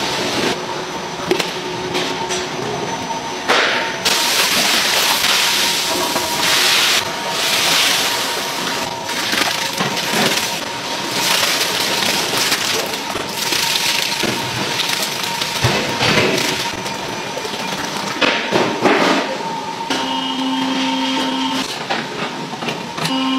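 Food-factory machinery: a steady hiss with clattering and rattling from mechanical mixer arms stirring in stainless-steel cooking kettles. A low machine hum comes in near the end.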